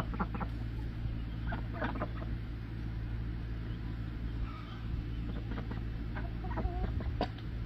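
Hens clucking now and then, a few short calls scattered through, over a steady low hum.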